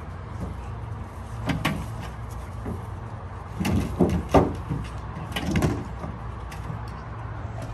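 American bully dogs thumping and scrabbling against a car's sheet-metal body as they jump onto it, in a few separate clusters of knocks over a steady low rumble.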